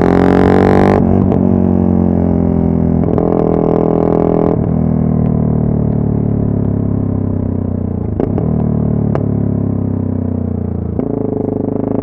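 Yamaha MT-03 660's single-cylinder engine and exhaust under way, with a deep droning note. It opens up briefly, then comes off the throttle with the pitch falling steadily, two sharp clicks partway through. About eleven seconds in, the note steps up again.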